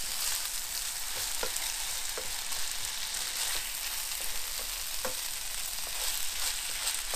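Rice frying in a non-stick frying pan, sizzling steadily as a wooden spoon stirs it through, with a few sharp clicks of the spoon against the pan.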